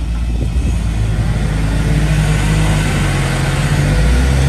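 Rock-crawling truck engines running under load on a boulder climb, growing louder and revving higher toward the end.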